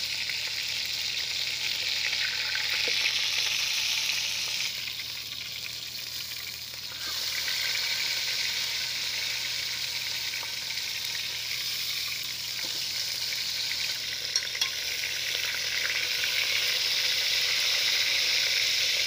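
Whole marinated chicken frying in hot oil in a steel pot, sizzling steadily. The sizzle eases for a couple of seconds about a quarter of the way in, then picks up again, and two sharp clicks come about three quarters of the way through.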